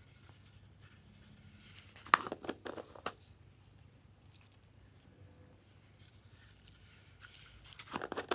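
Small plastic containers of slime and sequins being handled, giving a cluster of light clicks and crinkles about two seconds in and another near the end.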